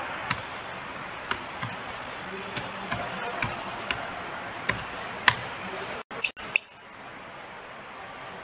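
Scattered single clicks of computer keys over steady hiss, about nine spread unevenly through the first five and a half seconds. Then the sound cuts out briefly and two louder clicks with a short ringing follow, after which the hiss carries on lower.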